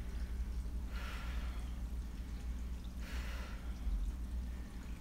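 A man breathing hard with exertion during a floor exercise: two forceful exhales, about a second in and about three seconds in, over a steady low hum.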